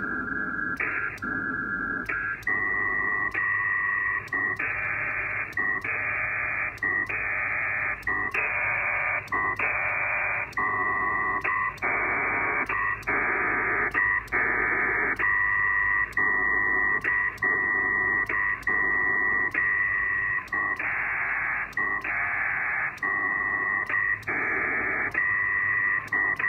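Pactor data signal from an SCS P4 Dragon modem link, heard through an HF radio's speaker: a buzzing warble of data tones that switches back and forth in short blocks, with a click at each changeover. This is the automatic exchange of data packets and acknowledgements as the station connects to a WinLink gateway and checks for mail.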